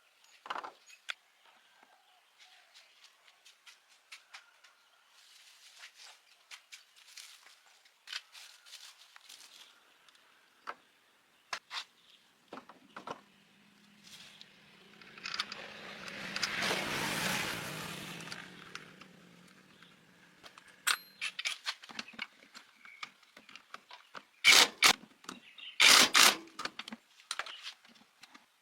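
Metal tools and parts clicking, clinking and scraping during hand work on the tricycle engine's carburetor, with a few seconds of hissing noise that swells and fades near the middle and several loud sharp knocks near the end.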